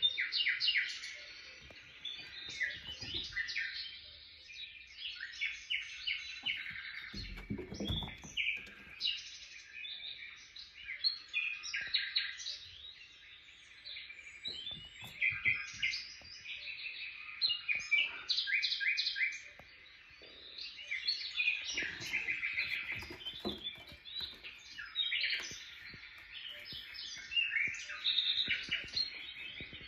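Small birds chirping and twittering continuously, with many rapid, high-pitched trills and chirps overlapping.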